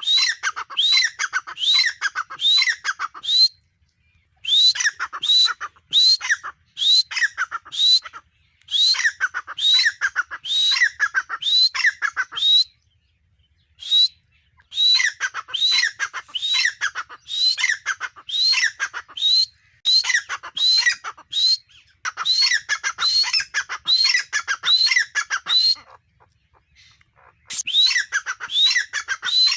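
Grey francolin calling: long runs of shrill, repeated notes, about two a second, broken by short pauses.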